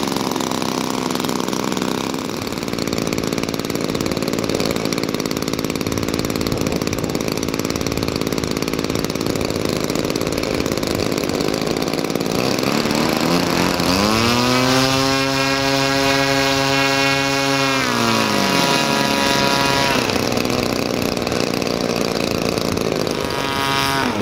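Small single-cylinder two-stroke petrol engines of large-scale RC warbird models (a DLE 20cc in a Hurricane, a DLE 35cc in a Spitfire) running on the ground. About halfway through, one engine is throttled up smoothly to high revs, held there for a few seconds and eased back to idle, and another run-up begins near the end.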